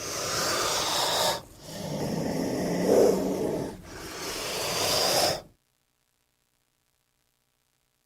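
King cobra hissing: three long, breathy hisses with a low, growl-like body, one after another with brief pauses. The hissing cuts off abruptly about five and a half seconds in, leaving silence.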